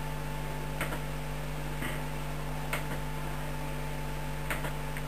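About five scattered clicks from a hand working an Acer Aspire laptop's controls, over a steady electrical hum.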